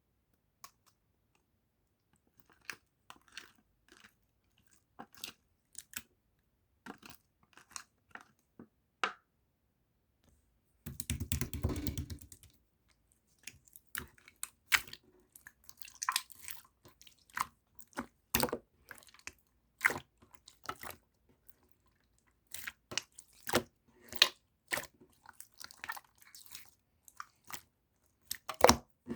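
Close-up crunchy chewing and biting: a run of sharp, irregular crackles, with a denser, louder rough burst about eleven seconds in that lasts just over a second.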